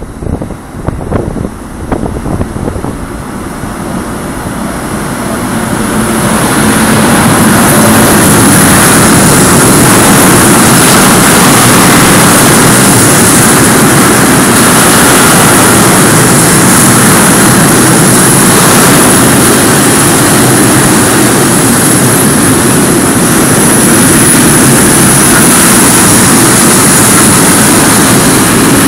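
Freight train hauled by an FS E652 electric locomotive approaching and running past close by. The noise grows over the first several seconds, then holds as a loud, steady rolling roar with a thin high whine over it.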